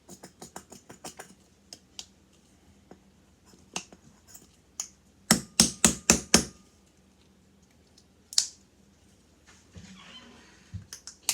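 Sharp clicks and snaps from hands working slime and its bowl and utensils: a quick run of light clicks at the start, five loud sharp snaps in quick succession around the middle, then single ones later.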